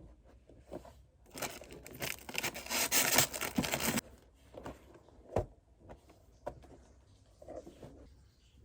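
A dense rustling, crackling noise, like something being handled, that cuts off suddenly about four seconds in, followed by a few scattered clicks and knocks.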